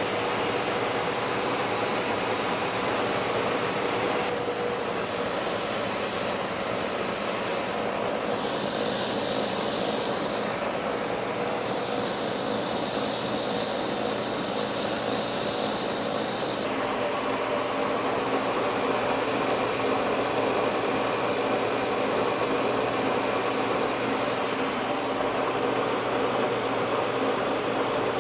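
Kearney & Trecker horizontal milling machine running, its arbor-mounted milling cutter cutting a CPVC plastic block: a steady machining noise full of hiss. The sound shifts abruptly about 17 seconds in, and is brighter and hissier for a few seconds near the middle.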